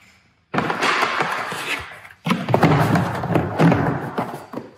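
Clumping cat litter pouring into the Litter-Robot 3's plastic globe, a rushing hiss in two pours: the first starts abruptly about half a second in, the second just after two seconds.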